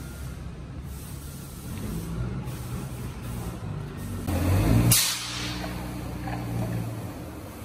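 A steady low mechanical hum, with a loud burst of hiss lasting under a second about four and a half seconds in.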